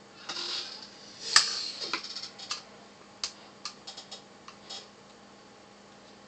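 Small metal hard-drive parts and a Torx screwdriver being handled: a brief scrape, then a string of sharp metallic clicks, the loudest about one and a half seconds in, thinning to a few light clicks later on.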